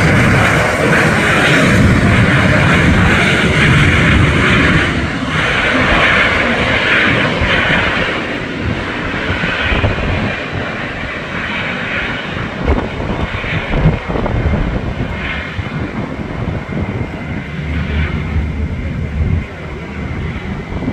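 Jet airliner engines running loud, with a strong hiss, then gradually fading.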